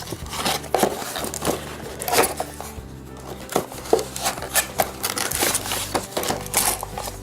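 Background music with scattered crinkles, taps and rustles from the box and its plastic packaging being opened and handled.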